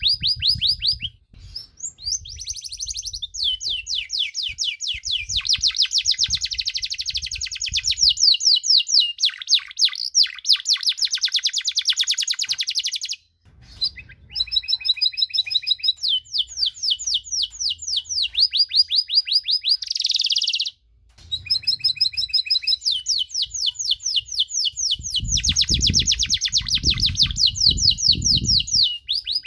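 Domestic canary singing a long song of rapid trills: fast runs of repeated notes, each run held a few seconds before switching to another. The song breaks off briefly about a second in, near the middle and about two-thirds through.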